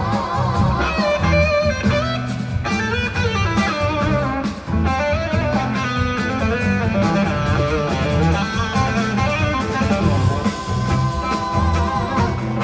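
Live blues-rock band playing, with electric guitar lines to the fore over drums and bass.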